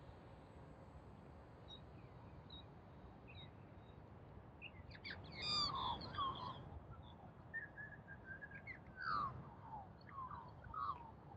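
Australian magpies calling, a few faint chirps first, then a loud burst of varied warbling and gliding notes about five seconds in, with more calls following.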